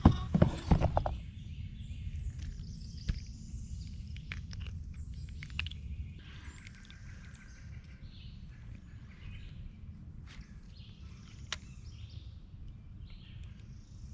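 Birds calling in the woods, short high calls and chirps scattered through the second half, over a steady low rumble. A quick clatter of sharp knocks in the first second, with a few single clicks later.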